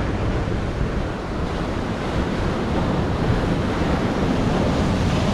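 Ocean surf breaking and washing over a rocky shoreline, a steady rushing noise, with wind buffeting the microphone.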